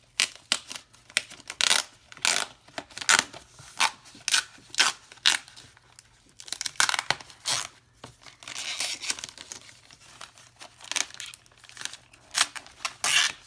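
Keyboard box packaging being peeled and torn open by hand: a long run of irregular short rips and crackles, with a longer rasping stretch a little past the middle.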